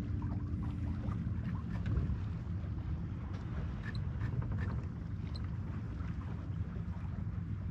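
Steady low wind rumble on the microphone aboard a small sailing boat under way, with light splashing and trickling of water along the hull.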